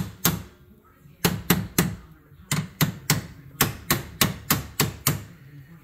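Hammer blows on a 1/2-inch grade 8 shoulder bolt, driving it through a golf cart's leaf-spring shackle and new Delrin bushings: about a dozen sharp strikes in quick runs of two or three, with short pauses between. The bolt is stopping on its threads and will not come out the other side.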